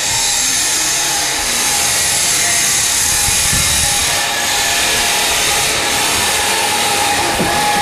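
A power tool running continuously at a steady pitch, a constant whine over a loud hiss.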